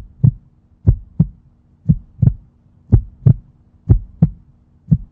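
Heartbeat sound effect: a deep double thump, lub-dub, repeating about once a second over a faint steady low hum.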